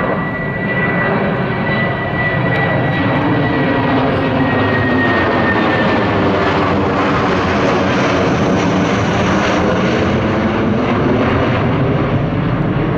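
Embraer KC-390 jet transport in flight, its twin IAE V2500 turbofan engines making a steady loud roar as it banks through a steep turn. A high fan whine sinks slightly in pitch over the first few seconds, and the roar grows brighter in the middle.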